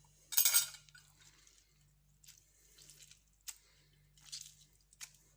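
A spoon scraping and squishing the juicy pulp out of a halved lemon, with one loud wet squelch about half a second in, then fainter scrapes and a couple of small clicks.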